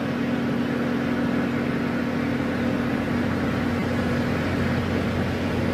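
Steady low hum with a hiss over it, unchanging throughout.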